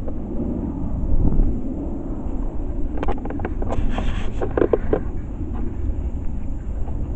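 Wind rumbling on the microphone, a steady low buffeting, with a brief burst of rustling and clicks about three to five seconds in.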